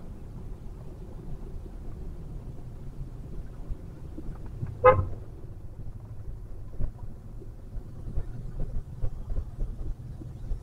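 Steady low road and engine rumble heard inside a car's cabin in slow traffic. About five seconds in, a vehicle horn gives one short toot.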